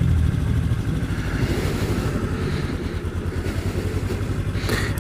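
Kawasaki Ninja 300's parallel-twin engine running at low revs with an even pulsing beat, under a light hiss of wind and road noise.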